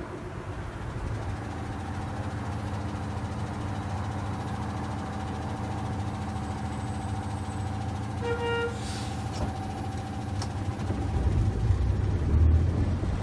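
Heritage tram giving a steady mechanical hum of several even tones, which stops about eleven seconds in. A short high tone sounds about eight seconds in, and a louder low rumble with wind on the microphone comes in near the end.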